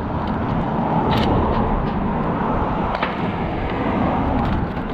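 Steady rush of road traffic passing on the bridge, with a couple of brief sharp ticks about a second in and three seconds in.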